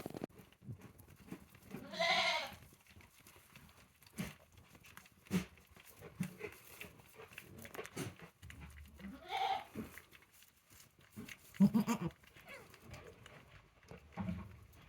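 Goats bleating: two short calls, about two seconds in and about nine seconds in. Between and after the calls there are scattered rustles and knocks, the loudest a cluster of knocks about twelve seconds in.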